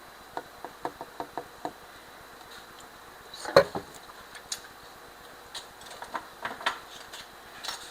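Small clicks and clinks of a drink being made by hand: bottle, cup and ice handled, a quick run of light clicks near the start and one sharper clink in the middle.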